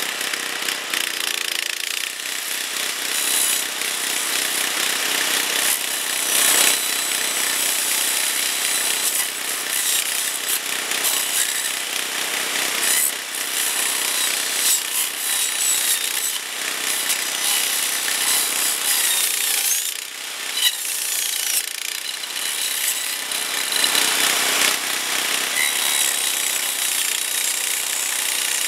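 DR walk-behind string trimmer's 8.75-horsepower engine running hard with its 12-inch Beaver Blade chainsaw disc grinding into privet stems at ground level, a loud, continuous rasping that swells and dips as the blade bites. The blade sticks out only a little past the belt cover, so it struggles to cut all the way through the stems.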